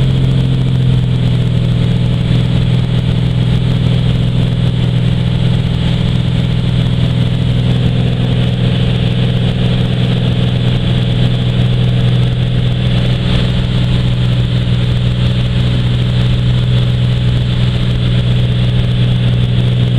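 Bellanca Super Viking's piston engine and propeller running at climb power just after takeoff, heard inside the cabin as a loud, steady drone. Its note shifts slightly about a second in.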